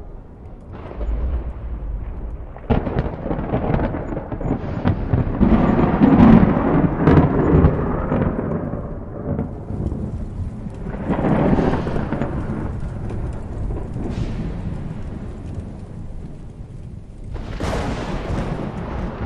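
Thunderstorm: thunder rumbling over steady rain. A sharp crack about three seconds in builds into a long, loud roll. A second swell comes past the middle, and a fresh crack near the end.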